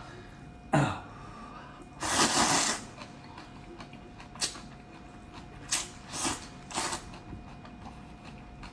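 A person slurping noodles: several hissing pulls, the longest and loudest about two seconds in, then shorter slurps and mouth sounds.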